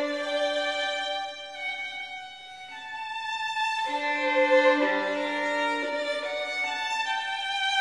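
Background music: a violin playing a slow melody of held notes.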